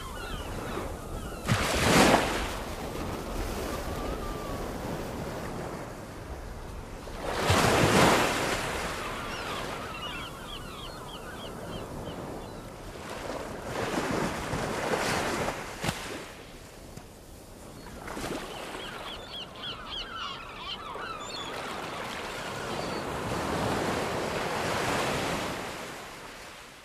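Ocean waves breaking in several slow swells, with bird calls chirping between them and no beat, fading out at the end.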